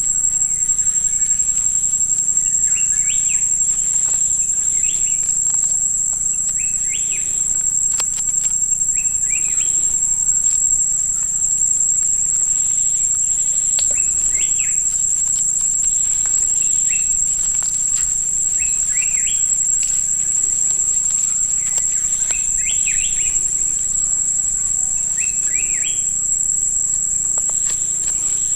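Steady, high-pitched insect chorus, like crickets or cicadas, with a bird giving short chirping calls every second or two.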